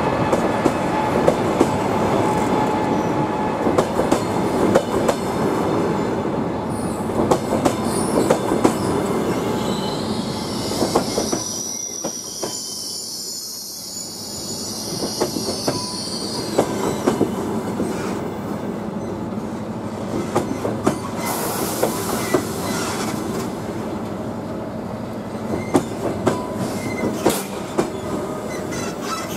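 Double-decker passenger coaches of an arriving train rolling past, their wheels running on the rails with a steady rumble and repeated clacks over rail joints. A high wheel squeal rises about a quarter of the way in, lasts several seconds, and briefly returns near the end.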